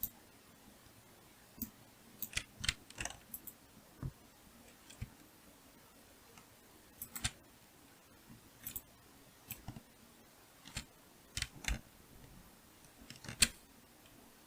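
Computer keyboard keystrokes and mouse clicks, irregular and faint, with one sharper click near the end.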